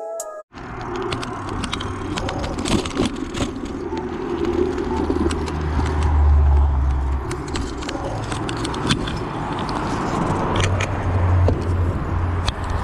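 Wind buffeting a handheld GoPro's microphone during a bicycle ride through city streets, a loud low rumble that swells twice, with many sharp clicks and rattles from the camera and the bike.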